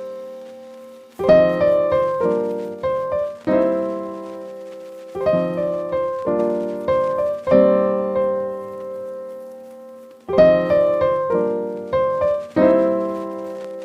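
Background piano music: slow chords struck and left to ring out, every second or two.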